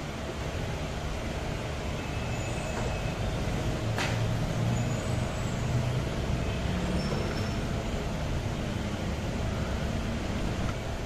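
Steady low background rumble of a workshop, with one sharp click about four seconds in.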